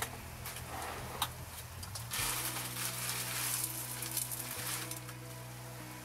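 Vegetables sizzling in a frying pan as they are stirred with a spatula, the sizzle starting about two seconds in.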